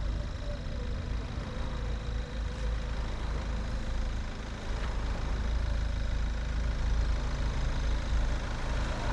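Off-road 4x4 vehicle's engine running steadily at low revs, a low rumble that grows a little louder about halfway through.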